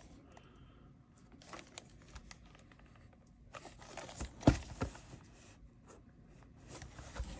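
Plastic shrink wrap on a cardboard booster box crinkling and crackling as the box is handled and turned over in the hands, in quiet scattered bursts, busiest about halfway through, with a sharp tick or two.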